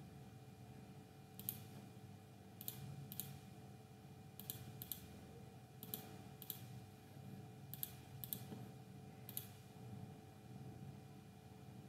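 Computer mouse clicking: about a dozen sharp clicks, mostly in pairs about half a second apart, over a faint steady low hum.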